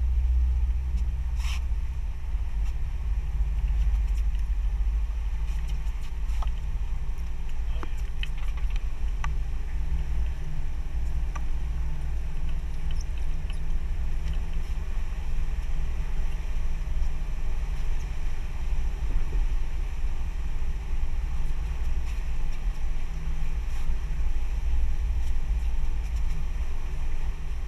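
Steady low rumble of the fishing boat's engine running while trolling, with a few light clicks and knocks of tackle being handled.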